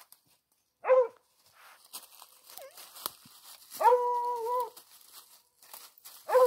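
Hunting dog giving voice while chasing an armadillo: one short bark about a second in, then a drawn-out bay of nearly a second around four seconds in, and another bay starting at the very end.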